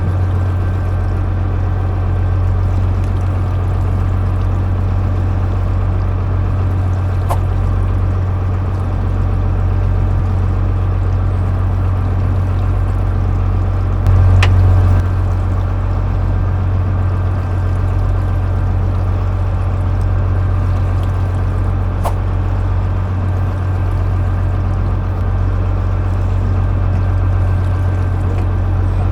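Fishing boat's engine running steadily with a constant low drone, over light water noise, with a few faint clicks.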